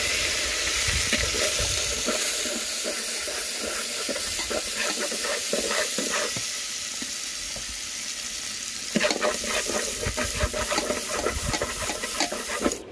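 Chopped garlic sizzling in hot oil in a metal pot while chopsticks stir and scrape it. Quick chopstick clicks against the pot side come thickest from about two-thirds of the way in.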